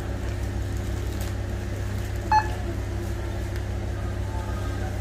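One short electronic beep about two and a half seconds in, the kind a checkout barcode scanner gives on reading an item, over a steady low hum.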